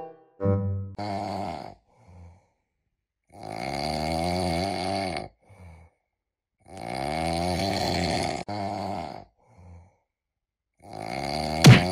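Snoring sound effect: long snores a few seconds apart, followed by a sharp whack near the end.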